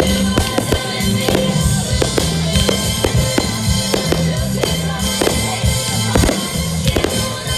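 Music from the fireworks show's soundtrack with a steady beat, with many sharp bangs of fireworks bursting mixed in throughout.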